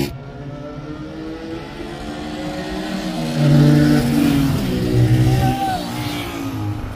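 Two motorcycles, a Benelli and a single-cylinder Honda 125, accelerating hard in a drag run and passing one after the other. Their engine notes rise and fall as they go by, with the loudest pass about three and a half seconds in and a second one about a second later.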